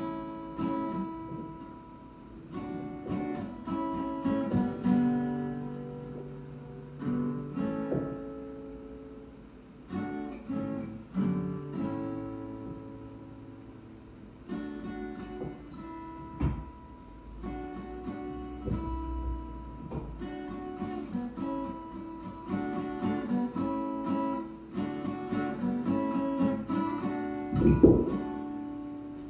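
Solo acoustic guitar being played, a mix of picked notes and strummed chords ringing out in phrases. There is a sharp low thump near the end, the loudest moment.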